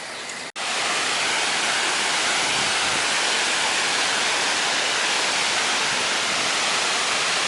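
Big waterfall rushing, a steady, even hiss of falling water that starts suddenly about half a second in.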